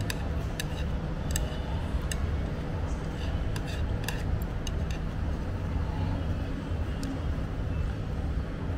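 Steady low rumble of background road traffic, with a handful of light, irregular clicks of wooden chopsticks and a ceramic spoon against a plate as noodles are picked up.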